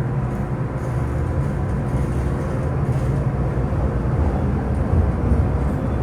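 MTR M-Train running, heard from inside the car: a steady low rumble of wheels on rail and traction equipment, with a faint steady hum above it.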